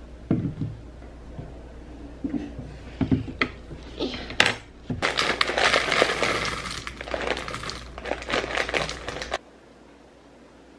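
A few knocks as a bowl is handled and set down on a table, then a foil cereal bag crinkling loudly for about four seconds as cereal flakes are poured into the bowl; the crinkling cuts off suddenly near the end.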